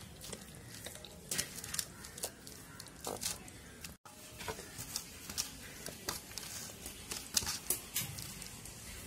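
Hand squishing and rubbing wet masala paste onto whole fish in a steel plate: irregular squelches and smacking clicks, with a brief cut-out about four seconds in.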